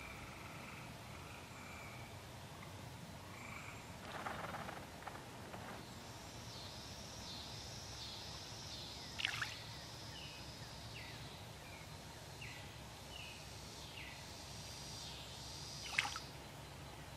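Faint evening chorus of frogs calling around the lake. A high, steady buzz joins about six seconds in, and two brief, sharp falling calls stand out, one around the middle and one near the end.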